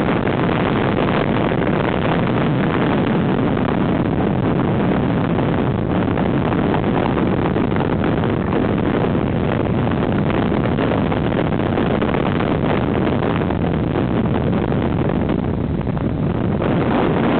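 Steady rush of wind across the microphone with the engine and tyre noise of cars travelling at highway speed.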